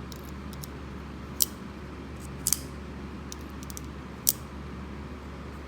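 A Benchmade 940-1 folding knife being handled: several sharp clicks, the three loudest about a second or two apart, over a steady low hum.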